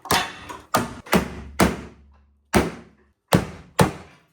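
A series of about seven sharp knocks and thuds, irregularly spaced, from someone hitting parts of a 2001 Jeep Cherokee XJ to test how sturdy they are.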